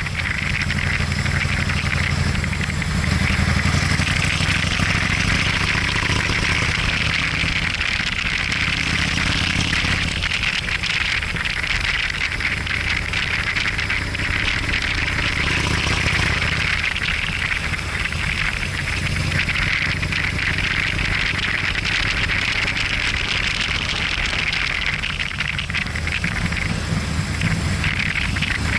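Motorcycle engine running steadily while riding, its note rising and falling a little through the bends, under a steady hiss of wind and road noise.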